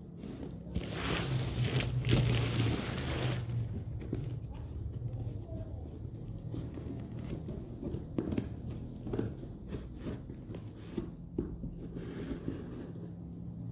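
Scissors cutting open a parcel's black plastic wrapping, with a loud rush of plastic tearing and crinkling about a second in that lasts a couple of seconds. After that come scattered snips and scrapes as the blades work along the cardboard box underneath.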